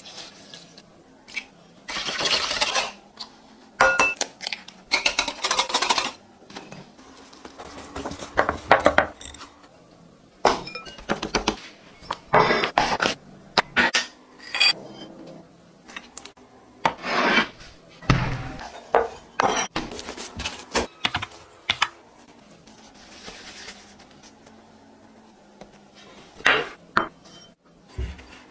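Kitchen food-prep sounds: glass bowls and utensils clinking and knocking, with pouring, stirring and scraping as ingredients are added and mixed, in a string of short separate bursts.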